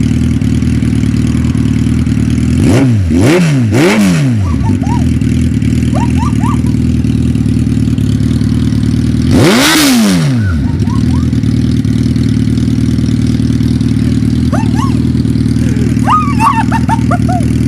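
Suzuki Hayabusa inline-four sport bike engine idling, blipped three times in quick succession about three seconds in and given one longer rev about nine seconds in, the pitch rising and falling back to idle each time.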